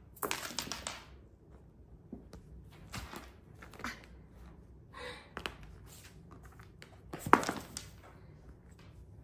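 Bengal cats batting and pouncing on wooden silvervine sticks on a hardwood floor: scattered taps and knocks of stick and paws on the boards, a quick cluster at the start and the loudest clatter about seven seconds in.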